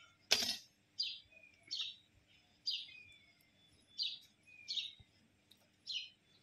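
Hand milking of a Murrah buffalo: milk squirting into a pail, a short high hiss with each squeeze, about one a second.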